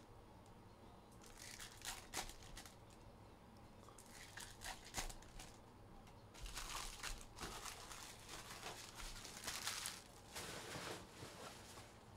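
Trading card pack foil wrappers being torn open and crinkled, in faint bursts that are busiest in the second half.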